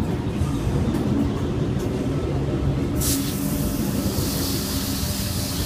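Tangara double-deck electric train pulling out, its carriages rolling past with a steady rumble. About three seconds in there is a brief hiss, then a steady high hiss.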